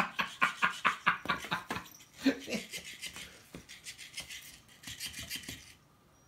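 A motorized Flippity Fish plush cat toy flopping and slapping against a cat that claws and kicks at it: fast, scratchy rustling and tapping that cuts off suddenly about six seconds in, as the fish stops moving.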